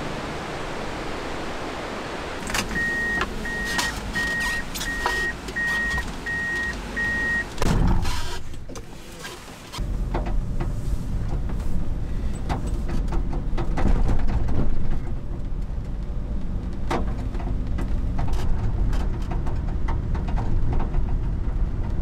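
Rushing-water hiss with a few clicks and about eight short, evenly spaced beeps, then a thump. After that a Subaru Sambar kei truck's engine runs with road noise, heard from inside the cab as it drives.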